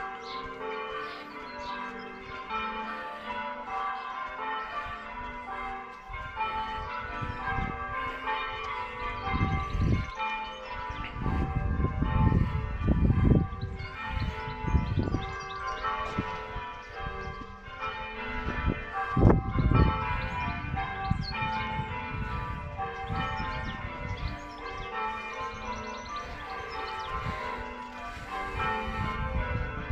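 Church bells ringing changes: several bells struck one after another in quick succession, their tones overlapping. Intermittent low rumbles swell under the bells several times.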